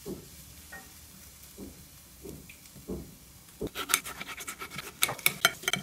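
Knife cutting tomatoes on a ceramic plate: quiet cutting at first, then, from a little past halfway, a rapid run of sharp taps as the blade strikes the plate.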